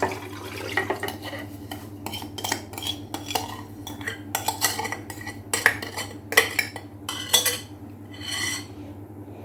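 A spoon and kitchenware clinking and knocking against a bowl, with some scraping, as the salt brine for preserved lemons is handled and poured over the lemons. The knocks come irregularly, several a second at their busiest.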